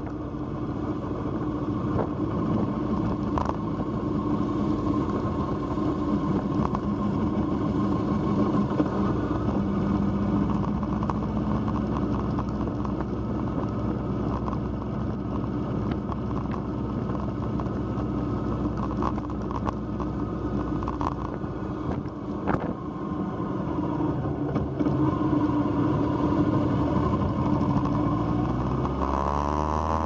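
Motorcycle engine running steadily at road speed, heard from a bike on the move with road noise underneath; the engine note shifts near the end.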